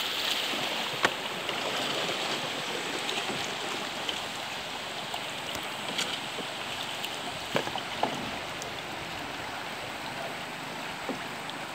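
Steady rush of flowing river water, with a spattering hiss over the first few seconds as a thrown cast net lands and spreads on the surface. A few sharp knocks sound about a second in and again around six to eight seconds in.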